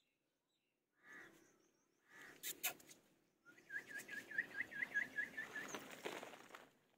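Rustling and scraping as a puppy scuffles with a cloth, with a few sharp clicks. A quick run of about ten short, high calls at one pitch, about five a second, comes through the middle of it from an animal.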